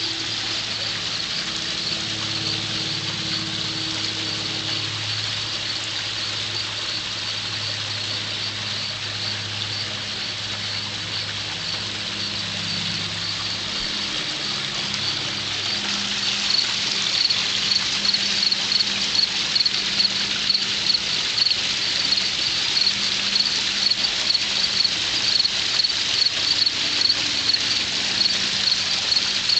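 Outdoor backyard pond ambience: a steady high-pitched pulsing chirr that grows louder about halfway through, over a low hum that fades out in the first half.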